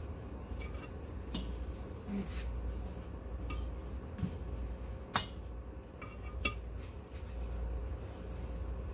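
Metal tongs clinking against stainless steel frying pans as seared steak pieces are lifted out. There are a few scattered clicks, with one sharper clink about five seconds in, over a low steady hum.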